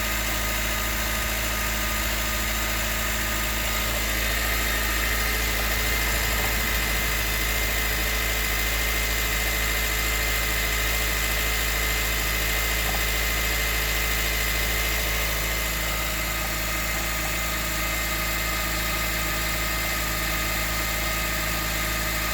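2019 Honda CR-V Hybrid's 2.0-litre four-cylinder petrol engine idling steadily on a cold start.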